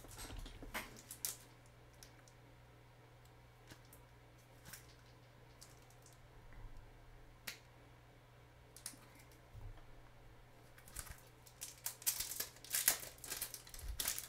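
Scattered light clicks and taps of a trading card being handled and fitted into a plastic magnetic one-touch holder, coming thicker near the end, over a faint steady hum.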